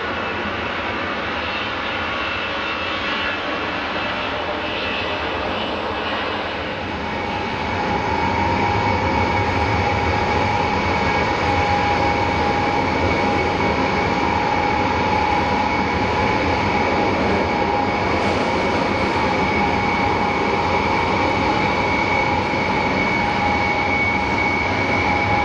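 Tupolev Tu-154M's three Soloviev D-30KU-154 turbofans running as the airliner taxis, a broad jet rumble with a high whine. About seven seconds in it grows louder and the steady whine stands out more clearly.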